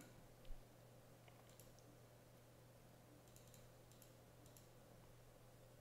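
Near silence: faint, scattered clicks from work at a computer over a low steady hum.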